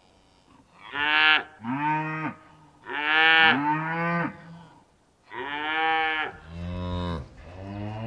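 Zebu cattle mooing: about seven long, loud moos, one after another in rough pairs, each rising and then falling in pitch, starting about a second in.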